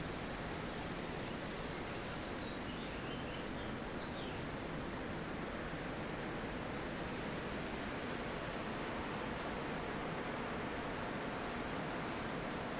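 Steady wind rushing through forest trees, with a few faint, high bird chirps about two and a half to four seconds in.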